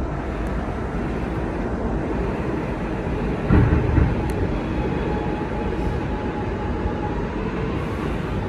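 Kawasaki R211A subway car running on the rails, heard from inside the car: a steady rumble with a couple of knocks about three and a half seconds in. From about halfway through, a faint motor whine rises slightly in pitch.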